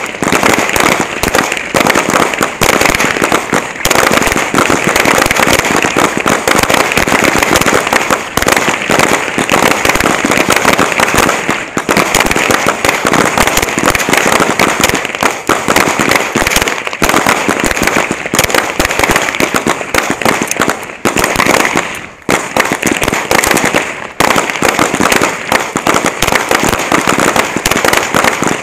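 Pistols firing rapidly on a shooting range, the shots so close together that they run into a continuous crackle.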